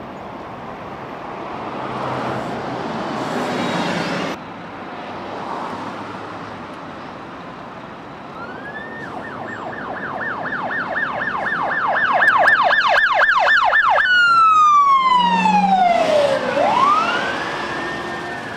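Police car siren on a fast yelp, about four sweeps a second, growing louder, then switching to a slow wail that falls and rises again. Before it, passing traffic noise.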